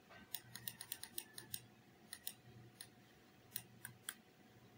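Faint, irregular clicks from a computer's controls, about a dozen short ones in quick clusters, over a low steady hum.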